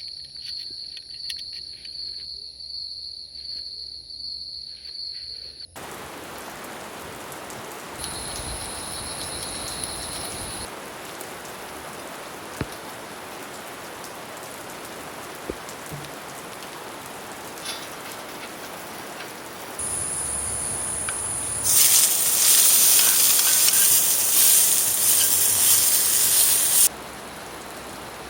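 Insects trilling in a steady high whine, then after a sudden cut a steady patter of rain. From about 20 seconds in, a much louder hiss builds and stops abruptly near the end.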